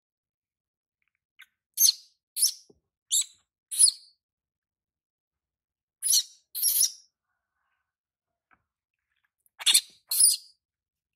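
Baby monkey giving short, shrill squeals: four in quick succession, then two, then two more near the end, protesting at being bathed.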